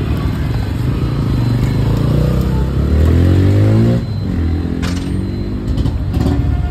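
Yamaha R15 motorcycle's single-cylinder engine running and revving, its pitch climbing for about two seconds before it drops off sharply about four seconds in, with a few short clicks near the end.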